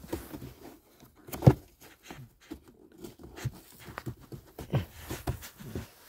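Plastic clicks, knocks and rustling as the car's old cabin air filter is worked out of its housing behind the glovebox, with one sharp knock about one and a half seconds in.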